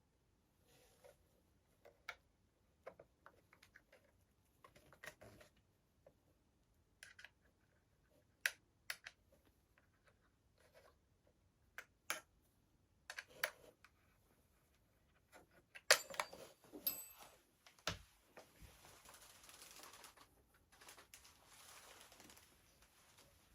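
Faint handling of airsoft gun parts: scattered clicks and taps of small hard pieces being picked up, set down and fitted together, followed by a few seconds of rustling near the end.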